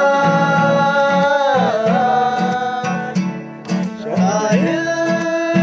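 Men singing a song together to a strummed acoustic guitar, holding long notes. The singing breaks off briefly about three and a half seconds in, then starts again while the guitar keeps strumming.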